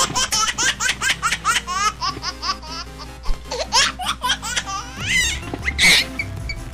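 A baby laughing in quick repeated bursts, several a second, densest in the first two seconds, over background music.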